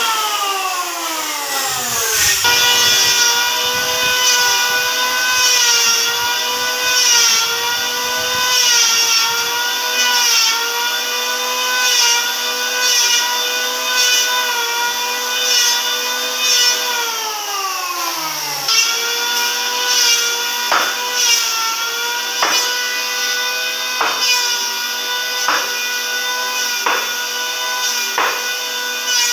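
A woodworking power tool's motor running with a steady whine. Its pitch drops twice as the tool takes load in the wood. Sharp knocks repeat through the last third.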